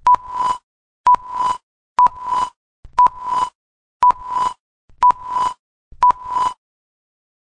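Electronic beep repeated seven times, one a second: each is a short steady high tone with a click at its start and a rising hiss swelling under it.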